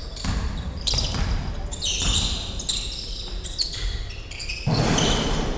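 Pickup basketball game on a wooden gym floor: sneakers squeaking in short high chirps and a ball bouncing, echoing in the hall. Near the end comes a louder rush of noise lasting about a second.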